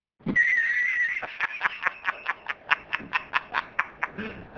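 High-pitched wheezing laugh from a meme sound clip: a squeal held for about a second, then rapid squeaky pulses about six a second.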